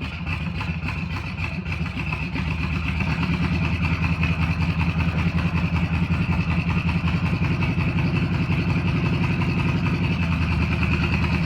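Air-cooled Volkswagen Beetle flat-four engine running steadily at a fast, even pulse, rising slightly over the first few seconds and then holding.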